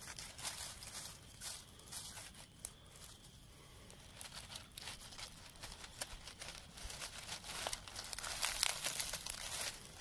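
Dry fallen leaves crackling and rustling as a hand moves through them. The crinkles come irregularly and get busier toward the end.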